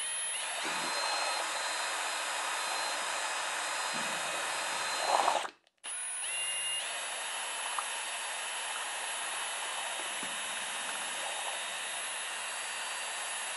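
Cordless drill spinning a kitchen hand-mixer beater to stir a gallon can of paint primer: a steady motor whine. It runs for about five and a half seconds, briefly louder just before it stops, then starts again after a short pause and keeps running.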